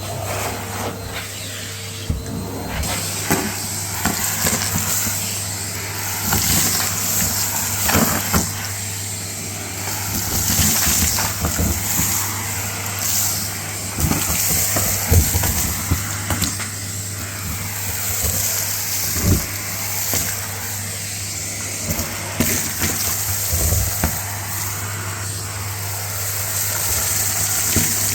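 Numatic Hetty canister vacuum cleaner running steadily with a constant motor hum and airflow hiss, while its tool sucks up crunchy homemade dirt mix. Frequent crackles and clicks come from the grit rattling into the nozzle and hose.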